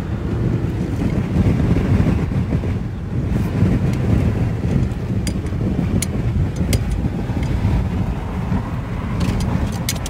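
Steady low rumble of road and wind noise inside a moving car's cabin on a highway in strong wind, with a few light clicks in the second half.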